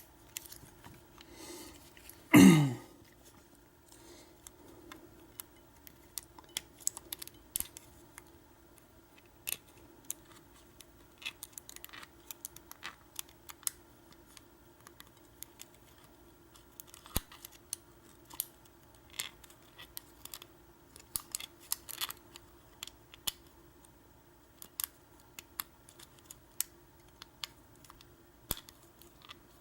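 Lock pick and tension wrench clicking and scraping in a Schlage deadbolt's pin-tumbler cylinder during single pin picking, with scattered, irregular small clicks. About two seconds in there is one brief loud sound that falls in pitch, and a faint steady hum runs underneath.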